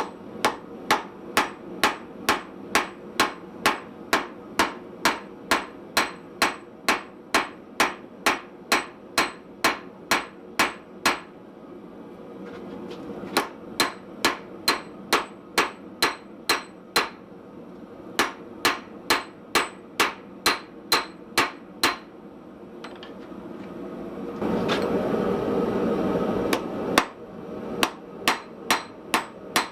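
Hand hammer striking hot steel on a small Austrian/German pattern anvil, forging a knife blade: sharp ringing blows about two a second, in several runs with short pauses between. Near the end the blows stop for a few seconds under a steady rushing noise, then start again.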